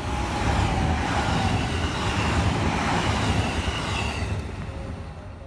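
Electric train passing close by on the line, its rumble swelling over the first second, staying strong, then fading from about four seconds in, with a whine falling slightly in pitch.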